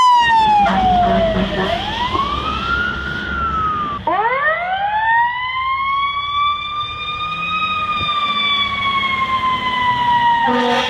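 Fire truck sirens wailing: the first falls in pitch and rises again, then after an abrupt cut a second winds up from low to a high held pitch and slowly falls. A steady, chord-like tone joins just before the end.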